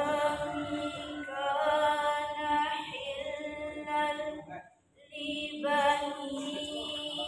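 A woman reciting the Qur'an from memory in a melodic chant into a microphone, with long held notes. There is one short breath pause about five seconds in.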